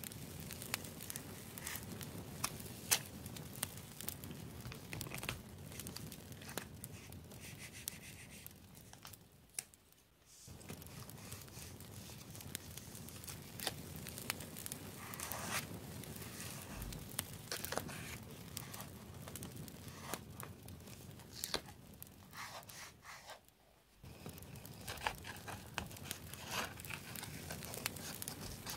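Paper stickers being peeled and handled with metal tweezers: crinkling and peeling paper with many small sharp ticks, briefly dropping away twice.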